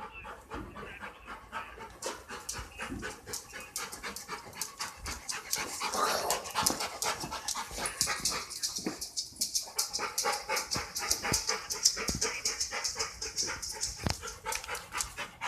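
A dog panting fast and hard, a quick, even run of breaths, the heavy panting of a dog frightened by fireworks.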